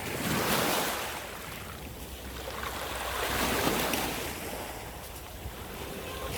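Rushing noise of wind and water that swells and fades twice, over a low rumble of wind on the microphone.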